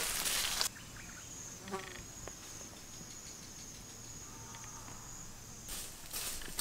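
Dry bamboo leaves crunching and rustling at the start and again near the end as someone moves and walks barefoot over the leaf litter. In the quieter stretch between, insects keep up a steady high buzz.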